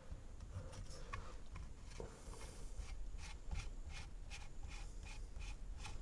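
Faint scratchy rubbing of hands working a plastic hose fitting back into place. About halfway through it becomes a run of short scrapes, about three a second, as the fitting is twisted on.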